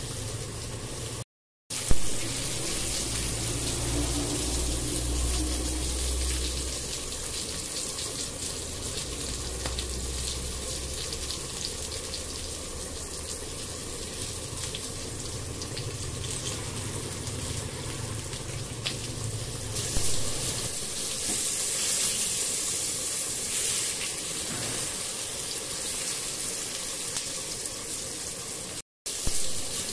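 Pointed gourd, potato and prawns frying in masala and oil in a pan, a steady sizzle. About two-thirds of the way through, water goes into the hot pan and the hiss turns brighter and louder as the curry comes to a simmer.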